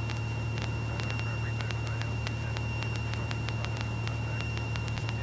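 Steady drone of a Cessna 172E's Continental O-300-D six-cylinder engine and propeller in flight, heard from the cabin. A thin steady high tone and a scatter of faint clicks sit over the drone.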